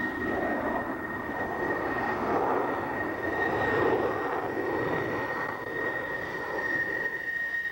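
Jet noise from a Sukhoi Su-37 fighter's engines as it flies overhead, a steady rush that swells and fades as the jet manoeuvres.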